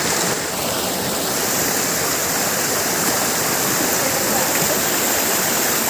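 Steady rush of flowing water from a monsoon stream and waterfall, an even hiss with no breaks.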